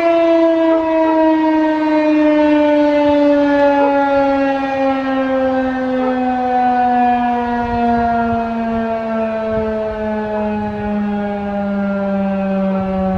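Federal Signal 2001-130 outdoor warning siren winding down, one tone with several overtones sliding slowly and steadily lower, with gentle swells in loudness.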